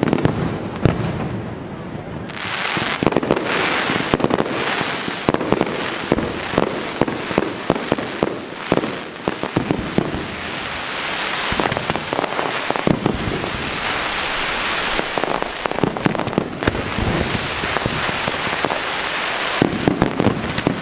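Aerial fireworks display: a rapid run of sharp bangs over a dense, continuous crackle. The bangs are sparser for the first couple of seconds, then the crackle swells and carries on with bangs coming close together.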